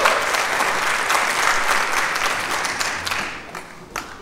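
Audience applauding, dying away after about three seconds, with a single sharp knock near the end.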